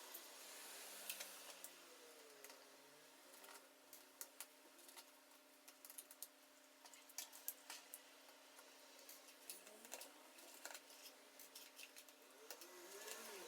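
Faint, scattered small clicks and taps of a precision screwdriver and fingers working at the screws and parts inside an opened MacBook Pro, with a faint steady hum underneath.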